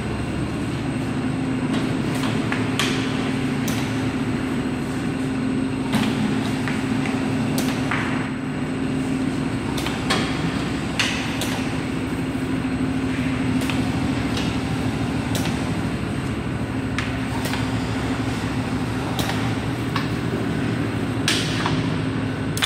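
Polyurethane shoe-sole pouring machine running with a steady hum, with irregular sharp metal clicks and knocks as the moulds are clamped and opened.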